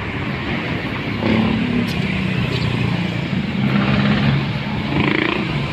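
Traffic on a busy city road: cars and a motor scooter driving past, with a steady engine hum that swells from about a second in and eases near the end.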